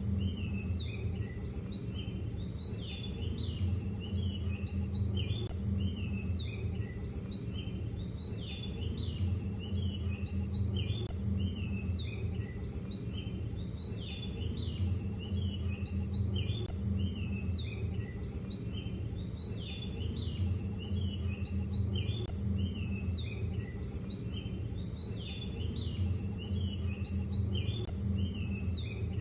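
Small birds chirping and twittering in quick, overlapping calls throughout, over a steady low rumble.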